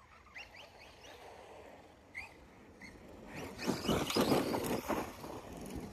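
Arrma Kraton 4S RC truck running at a distance: a faint rising whine from its brushless motor, then about two seconds of louder crunching of dirt and gravel.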